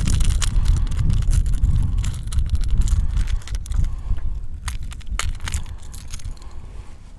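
Wind rumbling on the microphone, easing off toward the end, over a run of sharp clicks and rattles as a lipless rattling crankbait is twisted free of a bass's mouth.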